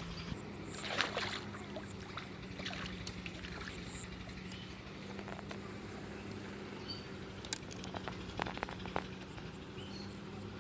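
Faint water sloshing at the water's edge over a steady low hum, with a few short clicks about a second in and again near the end.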